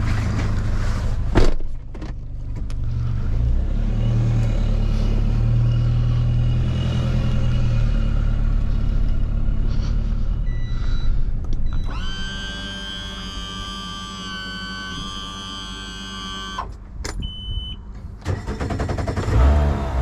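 Car engine and road noise heard from inside the cabin while driving, the engine note shifting up and down. There is a sharp knock about a second and a half in. Later come a few seconds of steady held tones and a short high beep.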